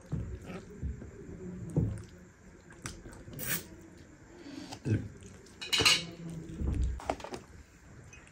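A fork clinking and scraping against a serving tray as saucy noodles are picked up, in a string of irregular short clinks.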